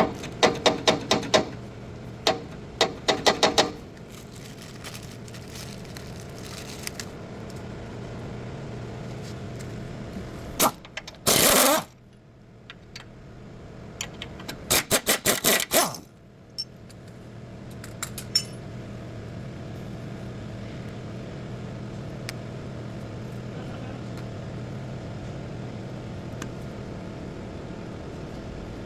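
Metal tools and parts clicking and knocking in quick runs during stabilizer link bush work on a GMC, with a loud short burst of noise about eleven seconds in, over a steady low hum.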